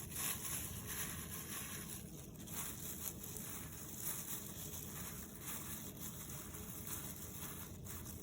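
Faint soft pattering and rustling of chicken cubes being rolled by hand in a flour coating, over a steady background hiss.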